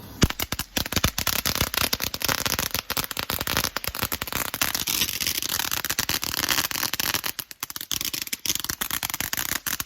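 Firework fountain going off, its spray of sparks making a dense, fast crackle over a hiss, with a sharp crack just after it starts.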